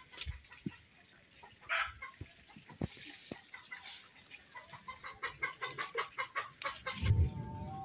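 Chickens clucking: scattered clucks, then a quick run of repeated clucks about five a second, followed near the end by a brief low thump.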